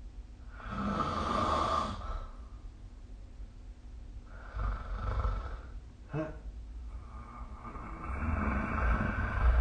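A sleeping person snoring: three long noisy breaths a few seconds apart, with a brief sharper sound between the second and third.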